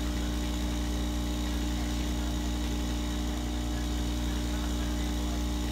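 Solder smoke absorber fan running with a steady hum.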